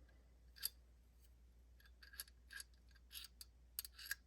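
Faint small clicks and taps of a disassembled aluminum pen's parts being handled: one click about half a second in, then a scattered run of light clicks in the last two seconds.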